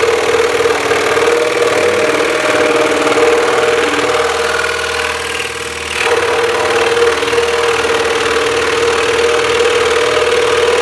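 Axminster Trade scroll saw running steadily, its reciprocating blade cutting through a thick wooden block. The sound drops a little for a moment about five seconds in, then returns to full level.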